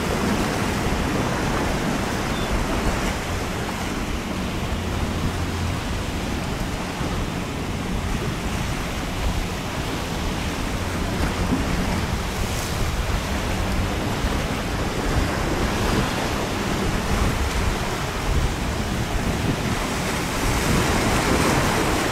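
Ocean surf crashing and churning steadily in rough water, with wind buffeting the microphone.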